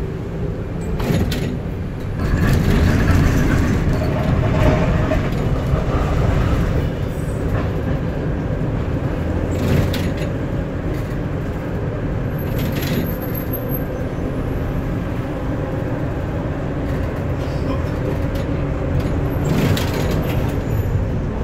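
Steady running rumble of a moving tram, heard from inside the car, with a few sharp clacks. It is louder from about two seconds in to about seven.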